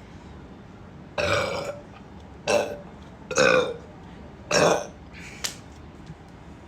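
A young woman burping: four loud burps in quick succession, each well under a second long, followed by a short fainter one.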